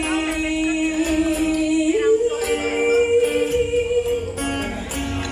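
A woman singing live over acoustic guitar, holding one long note, stepping up to a higher held note about two seconds in, then moving through shorter notes.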